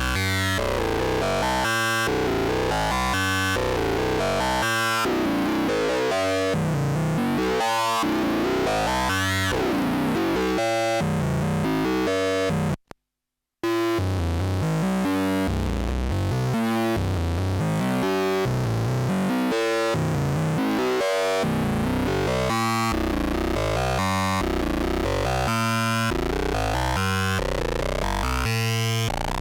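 Cre8audio Capt'n Big-O analog Eurorack oscillator playing a sequenced pattern of short synth notes, a bit under two a second, with its timbre sweeping brighter and darker over a few seconds at a time. It cuts out for under a second about 13 seconds in, then carries on.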